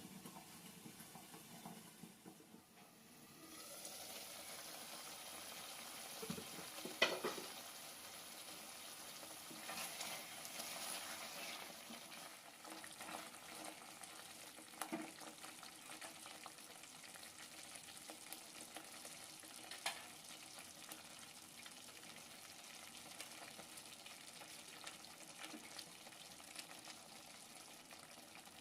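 Food sizzling and frying in a pan while being stirred, with a few sharp clicks of the spoon against the pan. The hiss dips briefly about two seconds in, then runs on steadily.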